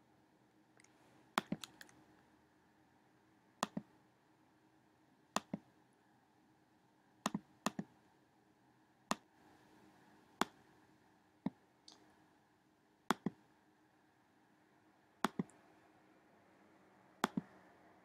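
Sharp clicks of a computer pointer button, some single and some in quick pairs like double clicks, coming every one to two seconds over a faint steady hum.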